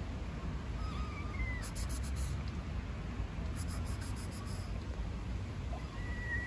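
Stray tabby kitten meowing faintly: a short high call about a second in, and a longer, falling call starting near the end, over a steady low rumble.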